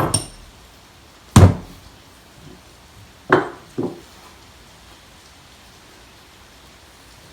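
Four sharp knocks of the old sledgehammer's metal head and wooden handle being knocked about, the loudest about a second and a half in, with two more close together near the middle.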